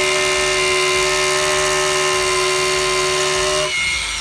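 Hilti TE 30-A36 36-volt cordless combihammer drilling into concrete in rotary hammer mode: a loud, steady whine over rapid hammering. It stops near the end, leaving a brief high whine.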